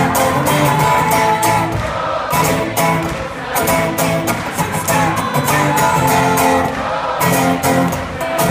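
Live guitar music: a guitar strummed in a quick, steady rhythm over sustained notes.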